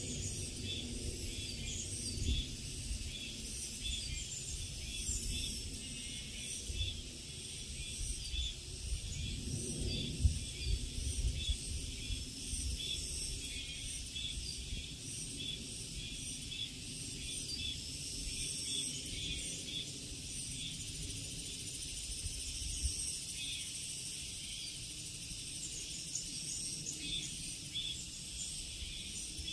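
Summer mountain forest ambience: a steady high-pitched chorus of insects with short bird chirps scattered through it. A low rumble swells about ten seconds in.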